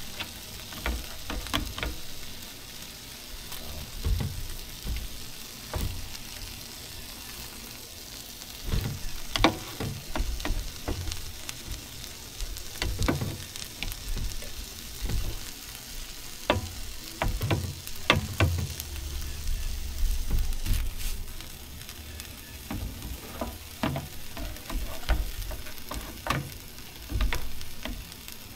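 Egg-washed sandwiches sizzling on a Blackstone 17-inch flat-top griddle, a steady frying hiss broken by scattered sharp clicks and knocks.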